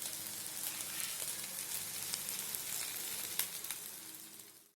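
Spiced chicken pieces sizzling in oil in a kadai on low flame: a steady hiss with a few scattered crackles, fading out near the end.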